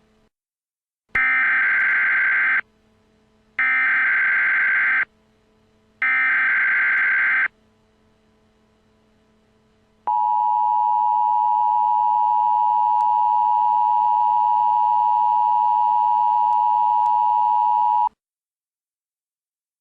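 Emergency Alert System tones. First come three SAME header data bursts, each a warbling digital screech of about a second and a half, spaced about a second apart. Then the two-tone attention signal (853 and 960 Hz) holds steady for about eight seconds and cuts off abruptly.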